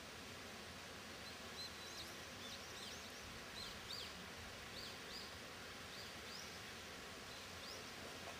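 Small birds chirping faintly: a series of short high notes, quick at first and then more spaced out, over a steady background hiss.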